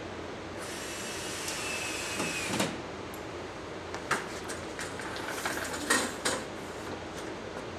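A scrape about two seconds long that ends in a knock, then a run of clatters and knocks as a small metal step ladder is picked up, carried and set down, loudest about six seconds in.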